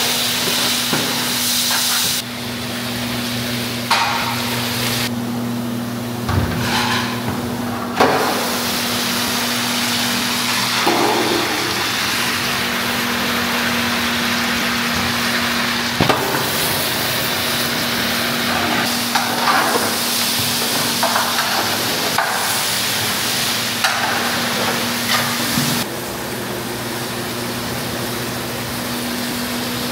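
Sliced onions frying in hot oil in a large aluminium pot, a steady sizzle with the ladle stirring, a few knocks against the pot and a steady low hum underneath. Pieces of lamb are tipped into the hot oil partway through.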